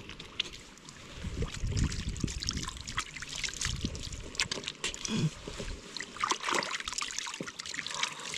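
Hot spring water trickling and splashing in irregular small splashes, as it is scooped and splashed by hand.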